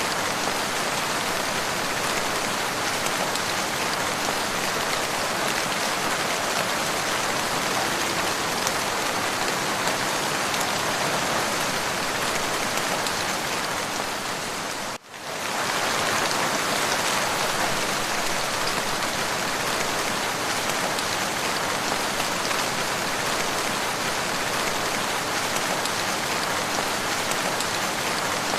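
Steady, continuous rain falling, a dense even hiss of drops. About halfway through it fades down briefly and comes straight back.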